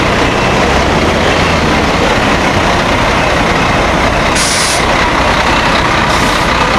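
Diesel coach engines idling close by, with two short bursts of air-brake hiss, one about four seconds in and a shorter one near the end.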